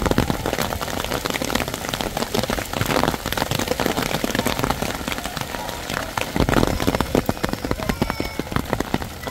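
Heavy rain pelting down on a surface, a dense, steady spatter of drops.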